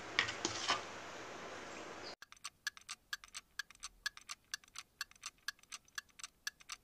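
A spoon stirring in a plastic bowl of fruit custard, with a few light clinks. About two seconds in, this gives way to a clock ticking sound effect, a quick steady tick-tock of about four ticks a second.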